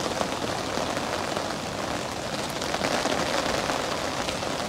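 Heavy rain falling steadily, a dense patter of many small drop ticks on an angler's umbrella overhead.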